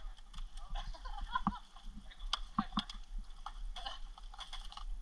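Scattered, irregular sharp clicks and snaps, typical of airsoft guns firing single shots and BBs striking, with faint voices in the distance.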